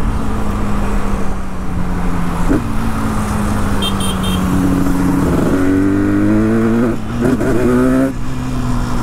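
Yamaha RD350's air-cooled two-stroke parallel-twin engine, breathing through an RD400 exhaust, running under way. Its note holds fairly steady, then rises as the bike accelerates from about halfway. There is a short break near the end, like a gear change.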